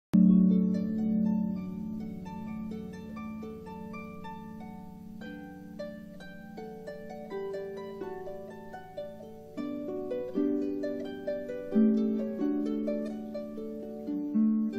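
Concert harp played solo: plucked notes ringing over sustained low notes, a slow melody that grows louder with stronger, quicker plucks from about ten seconds in.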